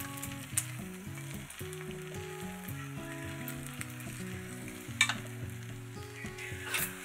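Beaten egg sizzling in a rectangular tamagoyaki pan on a gas stove while wooden chopsticks fold it, with a few sharp clicks of the chopsticks against the pan, the loudest about five seconds in.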